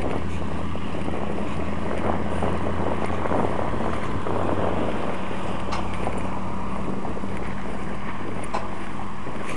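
Steady low engine hum with wind buffeting the microphone.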